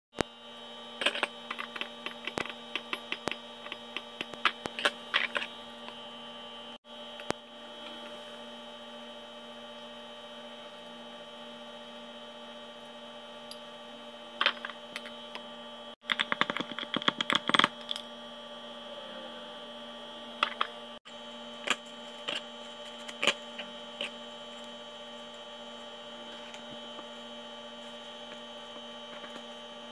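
A steady electrical hum runs throughout. Over it come clusters of quick, light clicks and clinks, a metal spoon and glassware knocking on drinking glasses: a run of them in the first few seconds and a dense burst just past the middle.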